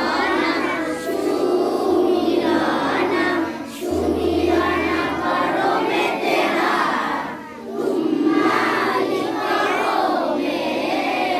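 A group of schoolchildren singing a song together, breaking briefly between phrases twice.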